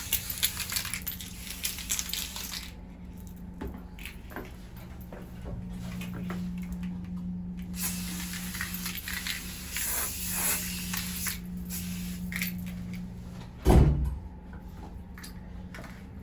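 Lysol aerosol disinfectant spray hissing, first in a quick run of short bursts and later in a longer spray, as surfaces are sprayed down. A single loud thump comes near the end, over a steady low hum.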